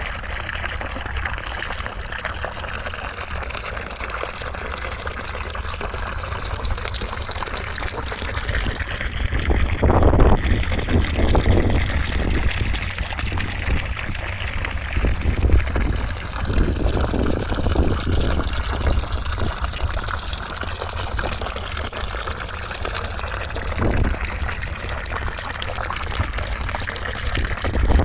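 Continuous white noise: an even rushing hiss with no breaks, its tone shifting slowly.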